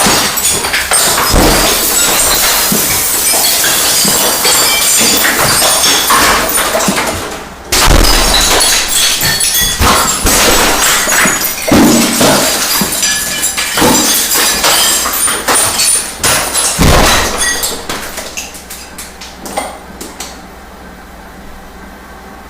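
Glass bottles falling and clattering against each other in a dense run of clinks and crashes, with a heavy thud about eight seconds in. The clatter dies away about eighteen seconds in, leaving a low steady hum.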